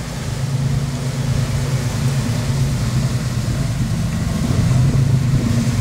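A sportfishing boat's engines running with a deep, steady hum over wind and water noise, growing a little louder near the end.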